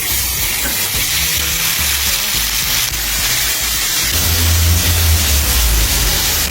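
Food frying in hot oil: a loud, steady sizzle over background music with a low beat.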